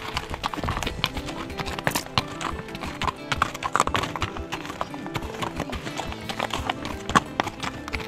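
Appaloosa horses' shod hooves clip-clopping at a walk over loose stones and gravel, with music playing underneath.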